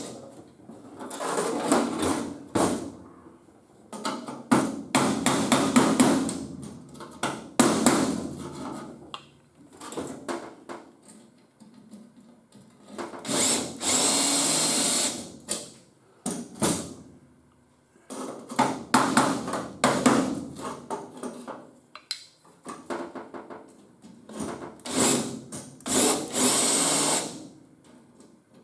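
Power tools and hammer strikes on sheet steel in stop-start bursts, with runs of quick sharp blows and a couple of longer high-pitched tool runs, as the remains of a Triumph TR3's battery box are cut out.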